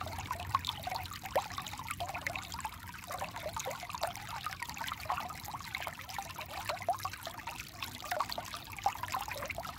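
Shallow stream flowing over rounded stones, a steady trickle with many small gurgles.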